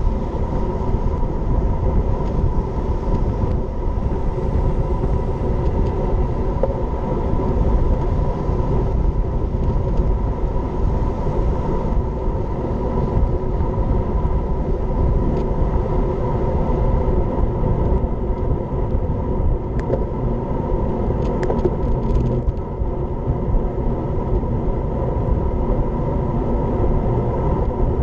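Wind buffeting the microphone of a road bike's action camera at speed, with the tyres rolling on asphalt: a steady, rumbling rush with a faint hum through it. A few faint clicks come about three quarters of the way through.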